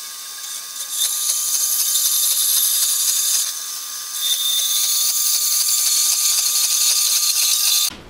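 Metal-cutting band saw running with a steady whine, its blade cutting through steel square tubing fed in at an angle. A loud, hissing cut starts about a second in, eases briefly around the middle, resumes, and cuts off abruptly near the end.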